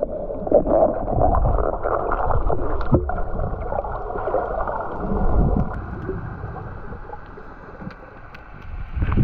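Muffled underwater noise picked up by an action camera below the surface: a steady low water rush with bubbling and scattered small knocks, swelling louder near the end.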